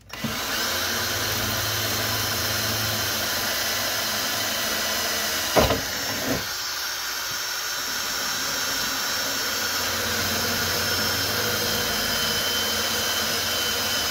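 Cordless drill running steadily as it bores a pilot hole into the sheet-metal wall of an electrical box. Two short knocks come about five and a half and six and a half seconds in.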